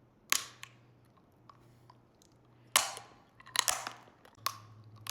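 Frozen wax candy bottles being bitten and chewed: a handful of sharp, crisp crunches as the hard frozen wax cracks between the teeth, with quiet chewing in between.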